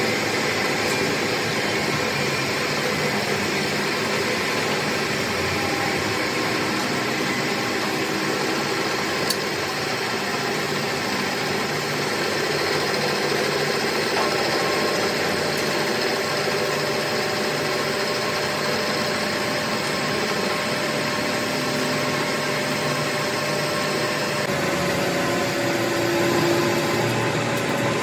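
Metalworking machine running steadily, a continuous motor noise with faint steady tones.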